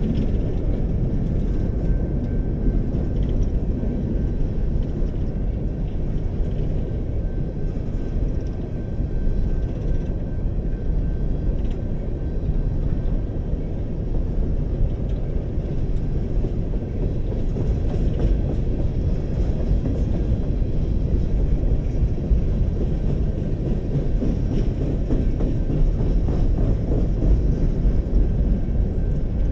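BNSF freight train of open-top coal hopper cars rolling past at steady speed: a continuous low rumble of steel wheels on rail.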